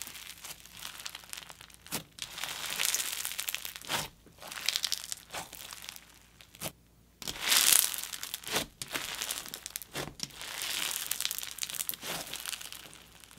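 Bingsu bead slime being pressed, squished and stretched by hand, its packed plastic beads giving a crunchy crackling with scattered sharper clicks. The crunching stops briefly about halfway through, then picks up again louder.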